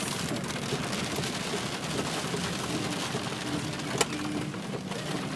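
Steady hiss of rain and water heard from inside a moving car, with a single sharp click about four seconds in.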